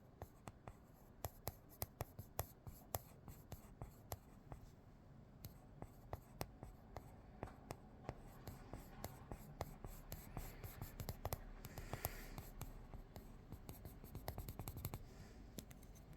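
Faint scratching of a drawing tool on paper as an area of a drawing is coloured in darker, with many small irregular ticks of strokes throughout.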